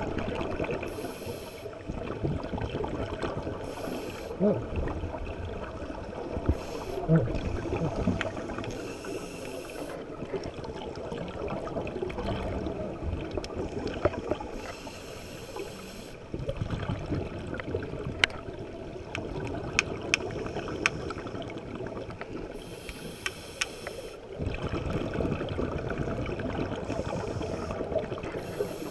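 Underwater sound of scuba diving heard through a camera housing: a steady water rumble with the diver's regulator breathing, recurring hissing bursts of exhaled bubbles every few seconds, and a few sharp clicks.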